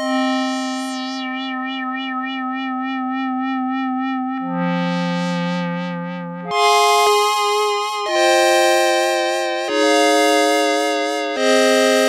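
Roland Jupiter-4 analog polyphonic synthesizer on a dry, single-oscillator patch, playing held chords. The first chord holds for about four seconds with a steady wobble. Then comes a brighter swelling tone, and from about halfway on, new chords come in about every one and a half seconds.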